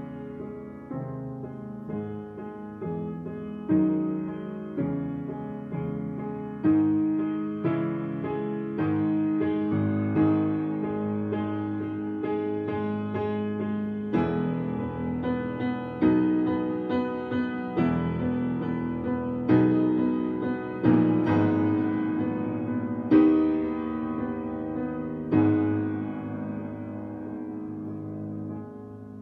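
Upright Steinway piano played in a slow passage of struck chords, with a note repeated steadily underneath. The playing softens near the end.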